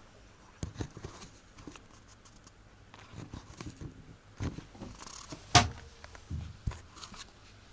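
Scattered short knocks and clicks from a camera being handled and moved, with one sharp, loud click about five and a half seconds in.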